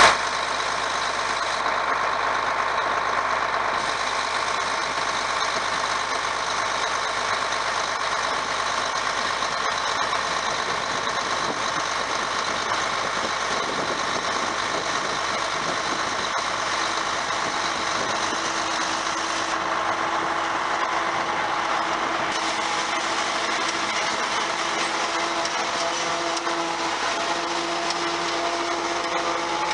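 Farm tractor's diesel engine running steadily, with machinery running along with it. A steady tone comes in about halfway through.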